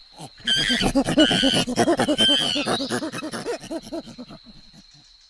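Agitated chimpanzees calling: a rapid run of hooting calls rising into shrill screams, starting about half a second in and fading out over the last couple of seconds.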